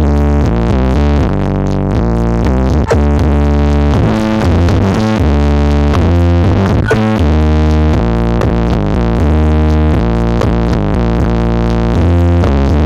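Loud electronic dance music with synthesizer chords and heavy sub-bass, played through a large outdoor sound-check rig of RCF speakers and about 60 subwoofers.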